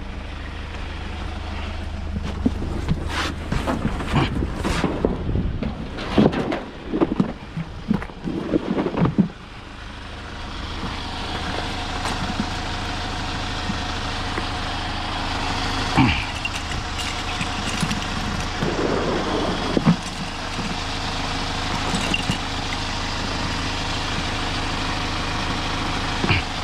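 Small Hyundai truck's engine idling steadily, with loud irregular knocks and clatter of gear being handled for several seconds, then a few single knocks.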